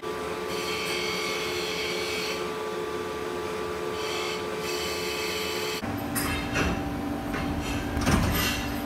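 CNC machining center's steady machine hum with a few held tones. A hiss comes and goes twice in the first half, and the last three seconds bring irregular knocks and rattles.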